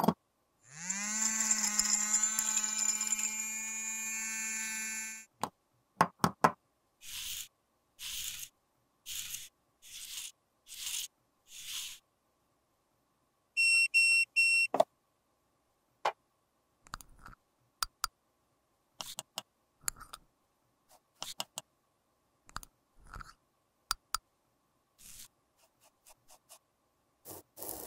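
A small electric motor in a jar-top device spins up with a rising whine, runs steadily for about five seconds and stops. Short bursts of noise follow about once a second, an appliance gives a quick run of beeps near the middle, and near the end a metal spatula scrapes through crushed makeup powder in a metal pan.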